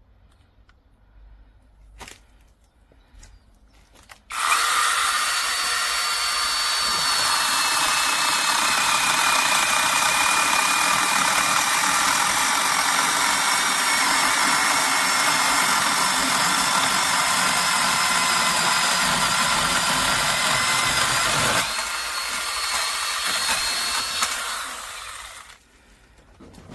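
Battery-powered 6-inch mini chainsaw with a 1000 W brushless motor, starting about four seconds in and cutting through a branch with a steady high whine. Near the end it runs lighter for a few seconds, then stops.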